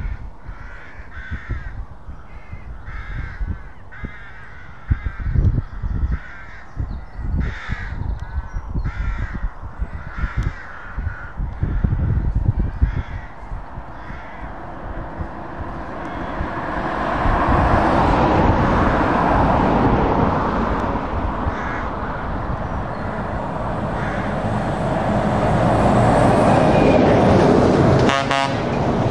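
A bird caws repeatedly, about a dozen calls over the first half, over a low rumble. Then heavy trucks, including DAF XG and XF tractor units, drive past, and their engine and tyre noise swells about halfway through and stays loud to the end.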